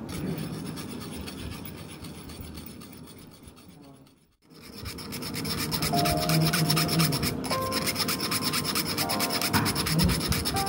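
Spoon rubbing matcha powder through a fine stainless-steel mesh sieve: a rapid, continuous scraping rasp of the spoon against the mesh. The sound fades out about four seconds in, then starts again louder.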